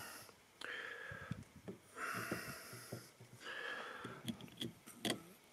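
Three slow breaths close to the microphone, about a second apart, then several light clicks near the end as a heavy mineral crystal is fitted against its clear plastic stand.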